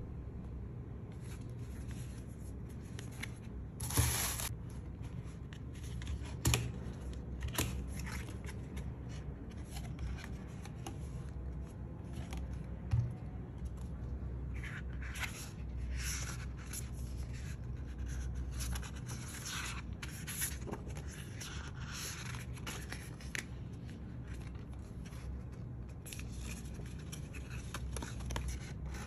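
Cardboard and paper packaging of an Apple Watch Ultra box being handled: card sliding and scraping, paper inserts and a booklet rustling and rubbing, with a few sharp knocks and clicks, the loudest about four seconds in.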